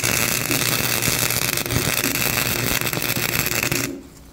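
Flux-core wire-feed welder arc crackling steadily while welding a nut onto a broken exhaust stud to extract it; the arc cuts off about four seconds in.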